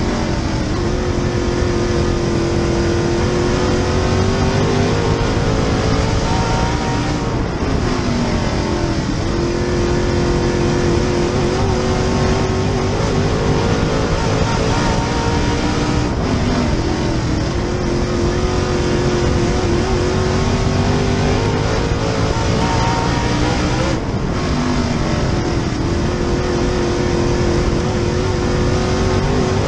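Super Late Model dirt race car's V8 engine heard from inside the cockpit, running hard at speed. Its pitch dips and climbs back three times, about eight seconds apart, as the car lifts into and powers out of the turns.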